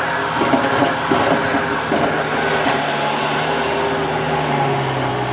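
Bobcat skid steer's engine running steadily, with knocks and rattles over the first two seconds. Its note drops slightly near the end.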